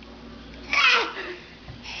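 A baby's single voiced, cough-like grunt, falling in pitch, about two-thirds of a second in: an infant imitating a cough.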